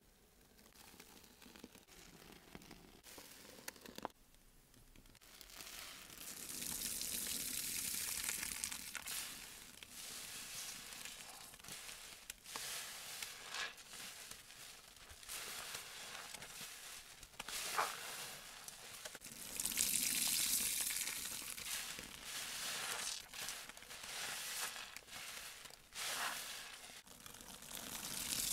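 Soap-soaked sponges squeezed by hand in thick dish-soap suds: wet squelching with a crackling hiss of foam and small pops, twice swelling louder for a few seconds.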